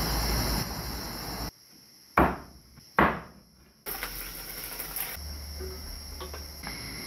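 Crickets chirring steadily in the night background, with two sharp knocks about two and three seconds in.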